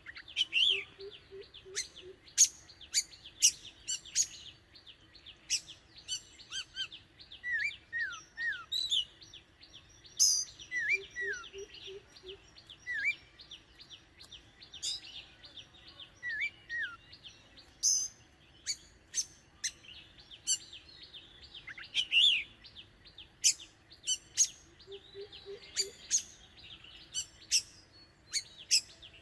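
Oriental magpie-robin singing: a string of sharp chirps and short whistled notes, some sliding down in pitch. A low run of four or five quick notes comes three times, near the start, about ten seconds in and near the end.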